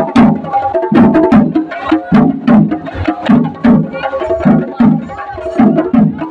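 Chendamelam: chenda drums played by a marching group, a steady heavy beat of about two to three strokes a second with sharp stick strokes between, and a held melody line over the drums.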